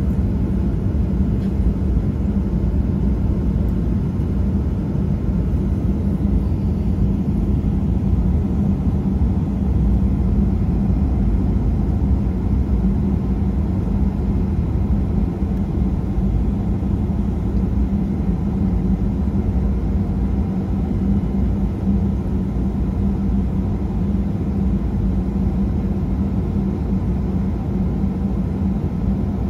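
Steady low rumble of an airliner taxiing, heard from inside the cabin, with a constant engine hum over it.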